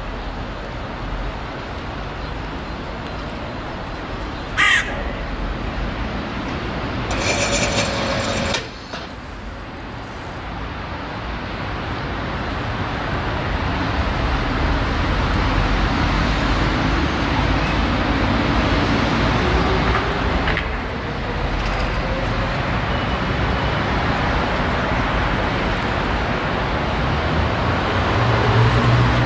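A crow caws, briefly and then once longer, in the first nine seconds. Then the low rumble of diesel engines grows steadily louder as a diesel shunting locomotive and a diesel railcar approach slowly, with an engine note rising gently in pitch towards the middle.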